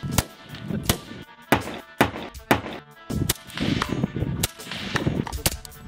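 Rifle shots, about half a dozen sharp cracks spaced roughly half a second to a second apart, over background music.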